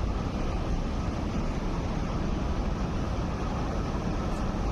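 Steady low rumble of a cable-hauled funicular tramcar rolling along its rails, with no distinct knocks or changes.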